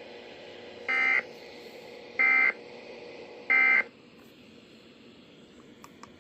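Emergency Alert System end-of-message signal: three short, buzzy digital data bursts about 1.3 s apart, marking the end of the broadcast alert. A faint steady hum underneath stops just after the third burst.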